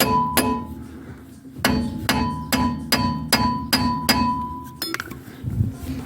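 A hammer striking steel on a Lada Granta's rear wheel assembly, each blow ringing with a clear metallic tone: two blows, a short pause, then a steady run of about seven blows at roughly two and a half a second. The part is seized and not yet coming loose.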